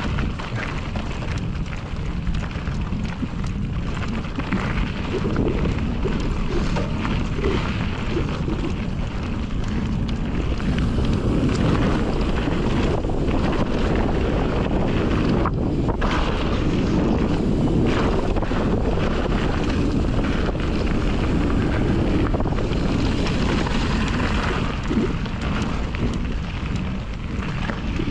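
Wind buffeting the microphone over the rolling noise of a Fezzari La Sal Peak mountain bike's tyres on a dirt trail at speed, with scattered clicks and rattles from the bike. The wind briefly drops about halfway through.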